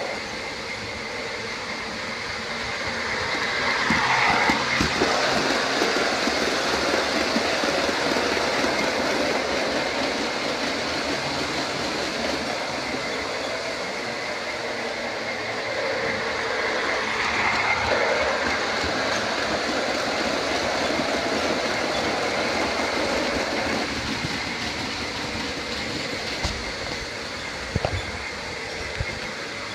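O-scale MTH Baltimore & Ohio E8 model diesel train with passenger cars running on O-gauge track, a steady rolling rumble and rattle of wheels on rail. It swells twice, about four seconds in and again a little past the middle, and a few sharp clicks come near the end.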